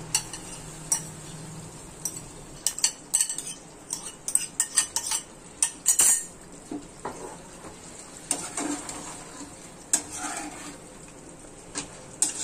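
Metal spoon tapping and scraping against a bowl and a steel kadhai as boiled chana dal is scraped into the pan, a quick run of sharp clinks in the first half, then the spoon stirring the dal into the chicken masala.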